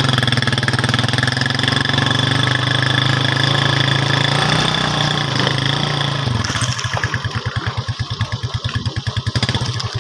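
Motorcycle engine with sidecar running steadily on the move. About six seconds in the steady note drops away to a slower, pulsing beat as the machine eases off.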